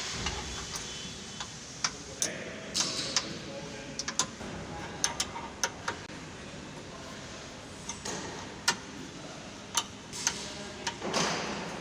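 Irregular sharp clicks and light knocks of hand tools at work in a workshop, with a short rushing noise near the end.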